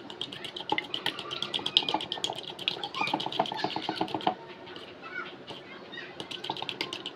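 Beaten egg being whisked with a fork in a bowl, the tines clicking rapidly against the bowl's side. The clicking stops a little over four seconds in, giving way to a few lighter taps.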